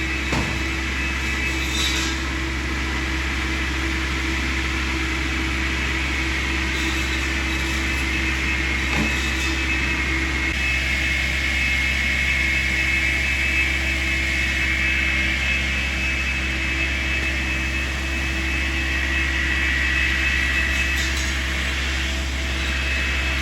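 Tree-trimming skidder with a telescoping saw boom running at a distance: a steady low engine drone with a high whine that drifts slightly up and down in pitch.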